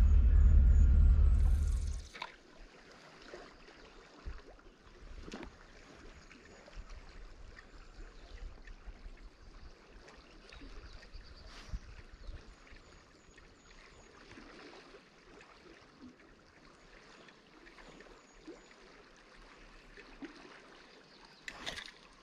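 A low vehicle rumble cuts off sharply about two seconds in. It gives way to the faint trickle of river water and scattered small clicks and taps of fishing gear being handled.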